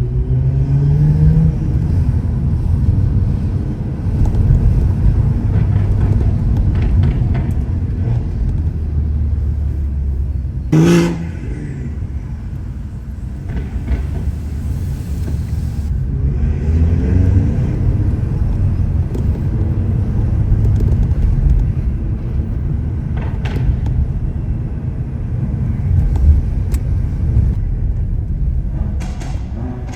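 Tuned BMW car engine rumbling under way, with the revs rising near the start and again about seventeen seconds in. A few short sharp cracks cut through, the loudest about eleven seconds in.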